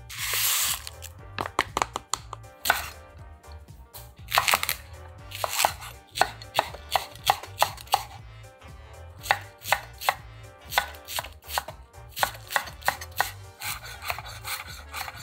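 Large kitchen knife chopping a Japanese long onion (naga negi) on an olive-wood cutting board: sharp blade-on-board chops, a few scattered at first and then a steady series of about two or three a second. At the very start, a brief sputtering hiss as grated garlic is squeezed from a tube.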